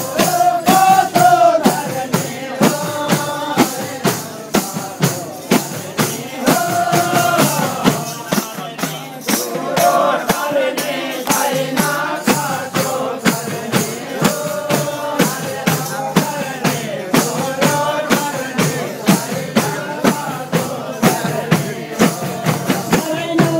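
Group of men singing a Hindu devotional bhajan together, accompanied by khaijadi frame drums struck in a steady beat of sharp strokes.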